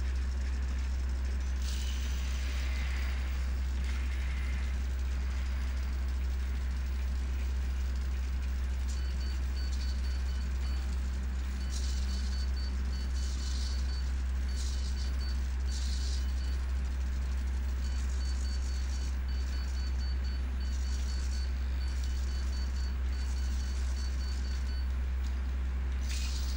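A steady low hum throughout, with short, repeated bursts of high electric whirring from the self-balancing robot's servo motors as it rises from rest into its upright balancing pose and moves its arms.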